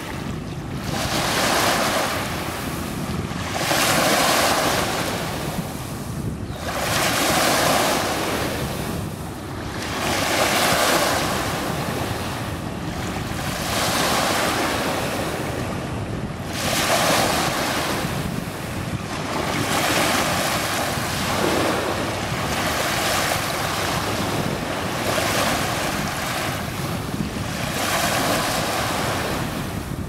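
Small waves breaking and washing up a sandy beach, a rushing surge about every three seconds that swells and fades as each wave runs in and draws back.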